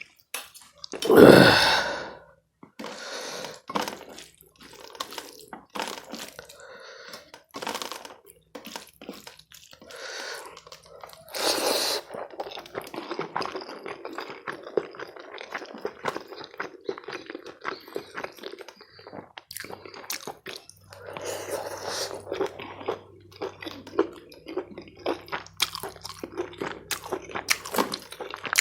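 Close-up chewing and mouth sounds of someone eating chicken curry and rice: irregular wet smacking, crunching and clicks throughout, with a brief louder noise about a second in.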